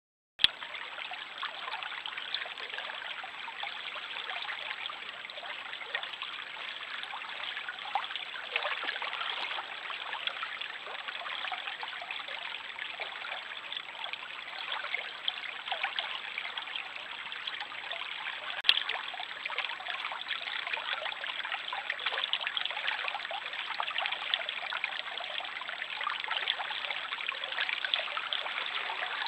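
Small stream trickling and babbling steadily, with a faint steady high whine underneath. There is a sharp click as the sound comes in and another about two-thirds of the way through.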